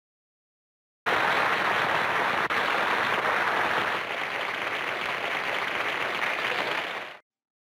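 A large audience applauding, steady massed clapping that cuts in abruptly about a second in and cuts off sharply near the end.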